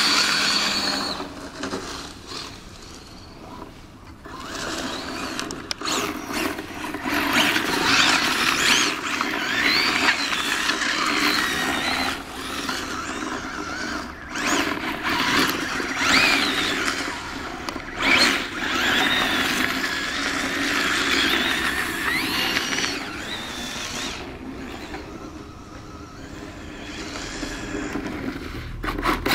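Electric motor and gearbox of a Tamiya DF-03Ra 4WD radio-controlled rally car whining, the pitch rising and falling repeatedly as the car accelerates, slides and slows on snow. It is quieter in the last few seconds.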